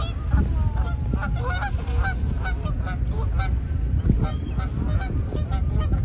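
A flock of gulls calling, many short squawks overlapping one another, over a steady low rumble.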